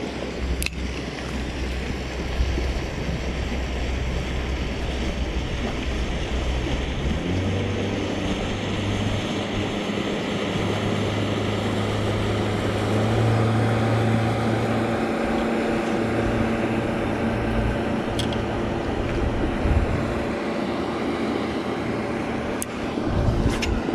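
An engine running steadily with a low hum. About seven seconds in its pitch rises briefly and settles at a higher steady note, and a few faint clicks sound later on.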